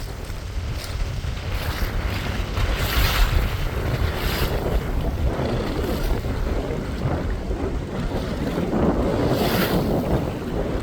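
Wind buffeting the microphone out on open water, a steady low rumble with water sounds around the boat. A few louder rushing swells come about two to four seconds in and again near the end.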